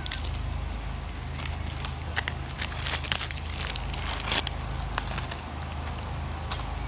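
Plastic snack-cake wrappers crinkling and crackling in irregular short bursts as macaques grab and handle the packets, over a low steady hum.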